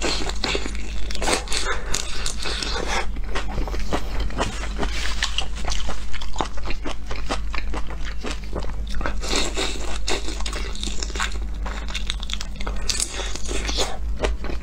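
Close-miked chewing and crunching of raw shrimp marinated in a chili and garlic sauce, with wet mouth sounds and dense crackling, some of it from shells being pulled off by hand. A steady low hum runs underneath.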